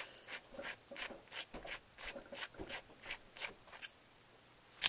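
Threaded metal body sections of a handheld blue laser being screwed together by hand: faint scraping clicks a few times a second, then a brief pause and one sharp click near the end.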